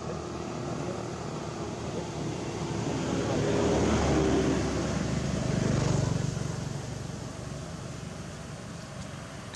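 A motor vehicle passing by: its engine hum swells to a peak about halfway through, then fades away.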